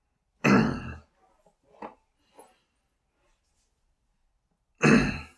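A man's voice making two loud, breathy non-word sounds close to the microphone, each about half a second long and about four seconds apart, with faint mouth noises between.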